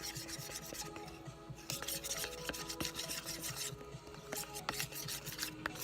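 Clear glue being stirred in a container, the stirring utensil rubbing and scraping against it in a quick run of short scrapes.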